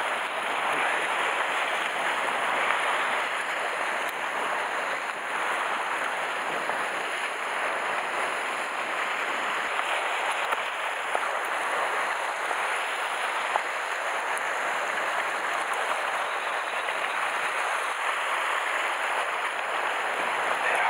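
Sea waves washing over and around shoreline rocks: a steady rushing of surf and moving water.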